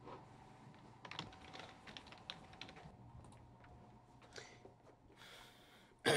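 Typing on a computer keyboard: quick, irregular key clicks, ending with a short, sharp, louder sound.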